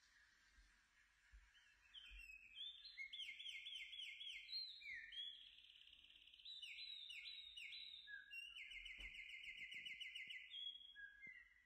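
High, bird-like chirping: runs of quick sweeping chirps, several a second, breaking into a fast, steady trill near the end. The chirping starts about two seconds in and stops shortly before the end.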